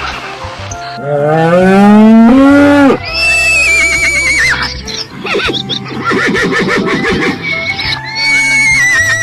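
A horse whinnying twice, each a high, quavering call that falls away, the first about three seconds in and the second near the end, over background music. A low, rising call comes just before the first whinny.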